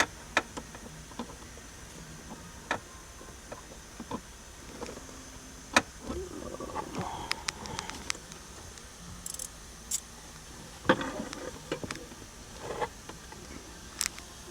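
Irregular metallic clicks and knocks of a small quarter-inch ratchet and socket being worked onto an 8 mm bolt inside a truck's dashboard, with quiet gaps between them.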